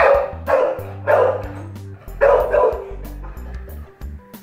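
A pit bull barking loudly in a quick run of about five barks, the jealous dog calling for attention, over background music.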